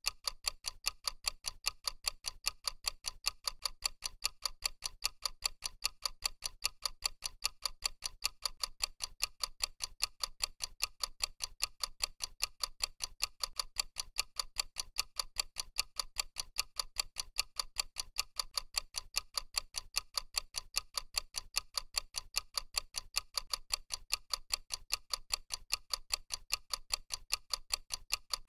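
Clock-tick sound effect for a countdown timer: a steady run of fast, evenly spaced, crisp ticks that does not let up.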